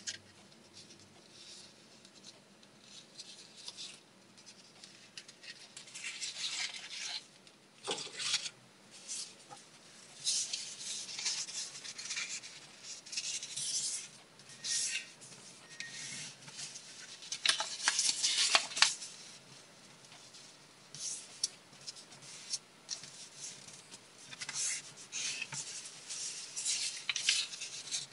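A sheet of colored copy paper handled and folded by hand on a tabletop: irregular rustling and sharp creasing swipes in short bursts, starting a few seconds in.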